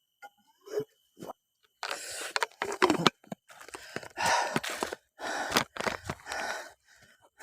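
A tired hiker breathing hard: a run of five or six loud, gasping breaths starting about two seconds in, each lasting around half a second to a second.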